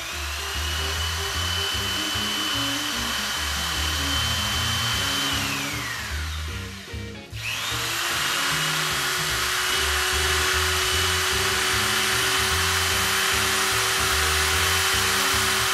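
Corded electric drill spinning a degassing whip in wine inside a glass carboy, driving out the carbon dioxide. The motor's steady high whine winds down and stops about six seconds in, then starts up again, reversed to keep the wine from foaming out. Background music plays underneath.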